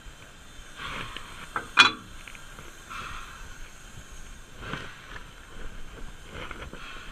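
Footsteps crunching on the ground alongside a standing steam locomotive, with a single sharp metallic clang that rings briefly about two seconds in.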